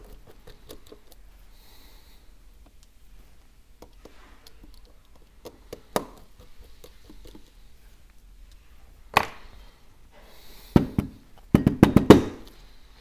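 Sharp taps and knocks: a single one about six seconds in, a few louder ones around nine to eleven seconds, then a quick cluster near the end. This is an iPhone 12 being tapped repeatedly to shake out sand or salt lodged inside it.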